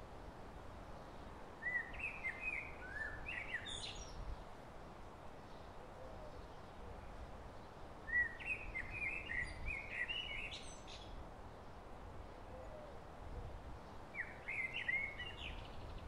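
A songbird singing the same warbled phrase three times, about six seconds apart. Each phrase is about two seconds of quick jumbled notes ending in a buzzy note. Steady low background noise runs underneath.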